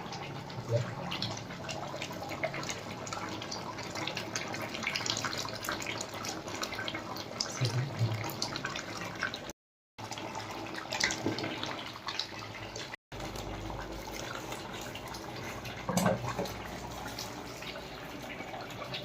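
Water running steadily from a tap into a sink, with scattered knocks and clinks; one louder knock comes about 16 seconds in.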